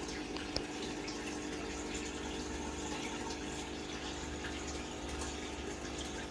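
Aquarium pump running steadily with a low hum over the sound of moving water, with one sharp click about half a second in.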